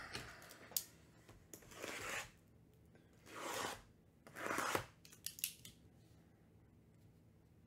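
A blade slicing the shrink-wrap on sealed trading-card hobby boxes: three scraping swishes about a second apart, with a few light clicks around them.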